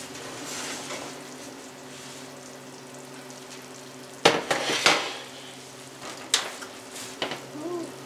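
A baked cheese-topped casserole just out of the oven, sizzling faintly in its dish. The hot baking dish and oven clatter loudly about four seconds in, with a couple of single knocks later.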